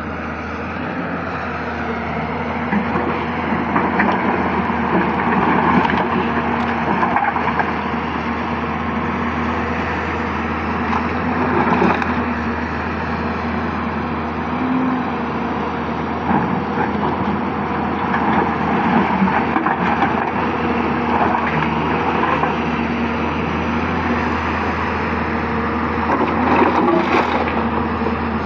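Hyundai 220-95 excavator's diesel engine running with a steady hum, its sound swelling and easing again and again as the machine works, with a few sharp knocks, one near the middle and one near the end.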